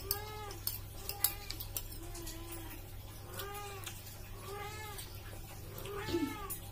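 A cat meowing repeatedly, about six short rising-and-falling meows roughly a second apart. A spoon clinks against a plate a few times in the first two seconds.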